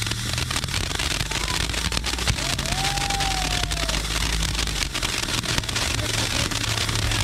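Ground fountain firework spraying sparks: a steady hiss with dense crackling over a low rumble.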